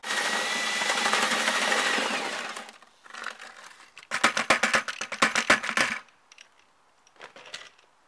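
Handheld electric paddle-mixer drill running in a bucket of castable refractory, its motor whining steadily, then winding down after about two and a half seconds. After that, a rapid run of sharp knocks and rattles lasts about two seconds.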